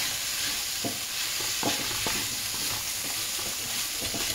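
Steady sizzling of a stir-fry in a nonstick wok, with a wooden spatula scraping and knocking against the pan a few times as the wood ear mushrooms, beef and leek are turned.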